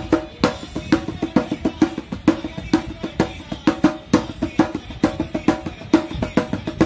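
Fast, steady drumming: a continuous run of pitched drum strokes, about five or six a second, without a break.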